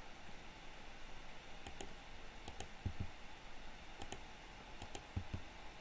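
Computer mouse and keyboard clicks at a desk while a bone is moved and placed in Blender: a few sharp clicks, several in close pairs, spread out over several seconds, with a couple of soft low knocks, over faint room hiss.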